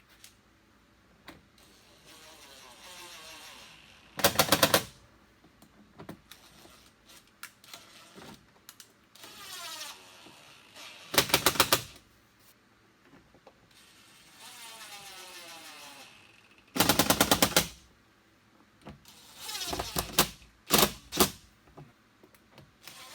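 Cordless impact driver running screws into a Jeep Wrangler JK door panel. Each time it whirs briefly, then gives a short rapid hammering rattle as the screw seats, about five times.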